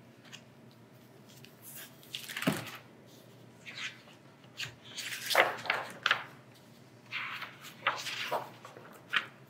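Hardcover picture book being opened and its pages turned by hand: the cover and dust jacket lifting and paper pages swishing and rustling, in several short bursts with light taps.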